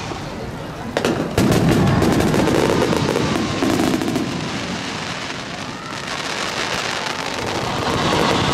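Aerial fireworks bursting: two sharp bangs about a second in, followed by a long run of crackling as the shells' stars burn out, growing denser and louder near the end.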